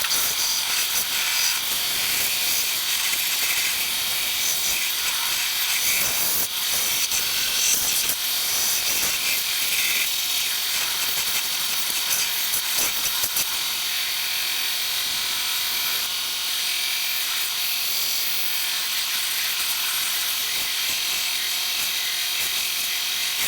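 Belt sander running with a coarse, low-grit belt, a wooden blank pressed against it and being sanded to shape. The noise is steady and loud, with a few brief changes about six and eight seconds in as the piece's contact shifts.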